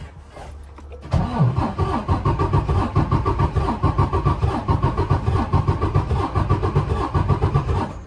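Detroit Diesel DD15 inline-six diesel cranking over on the starter without firing, in an even fast rhythm that starts about a second in and stops abruptly at the end. This is the relative compression test that flags cylinder 4 as weak, which the mechanic puts down to valves out of adjustment rather than a bad injector.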